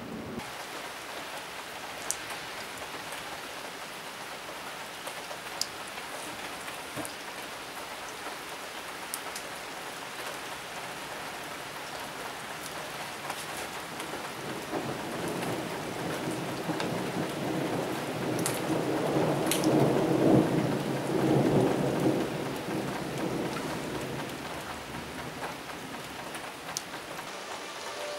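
Steady rain falling, with scattered sharp drop ticks. Past the middle a rumble of thunder builds, peaks and dies away.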